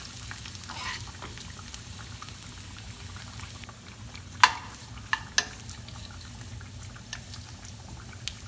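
Mustard seeds, shallots and curry leaves sizzling steadily in hot oil in a frying pan as they are stirred, with a few sharp clicks about halfway through.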